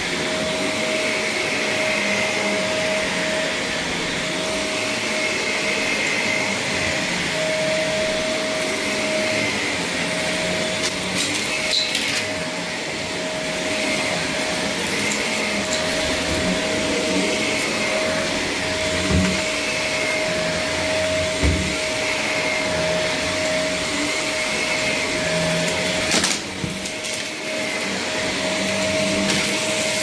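Stick vacuum cleaner running on carpet: a steady motor whine over the rush of air, as the head is pushed back and forth. A few short knocks come through about a third of the way in, twice around two-thirds, and once more near the end.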